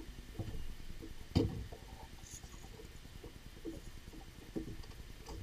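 Light, irregular knocks and small water slaps around a fishing boat, with one sharp knock about a second and a half in.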